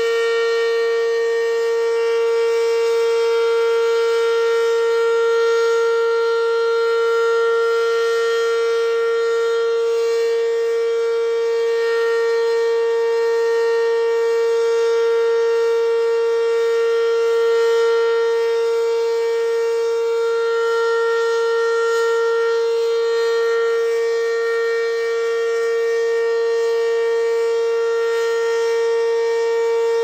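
ACA Banshee 115 outdoor warning siren sounding its steady full-alert test signal: one held pitch that does not rise or fall, with slow, slight swells in loudness.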